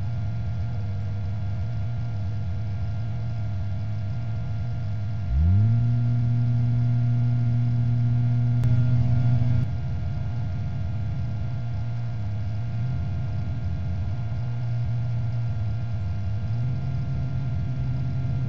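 Helicopter's steady engine and rotor hum during a hover. About five seconds in, the rescue hoist's motor starts with a quickly rising whine, runs steadily for about four seconds as it pays out cable, and cuts off suddenly.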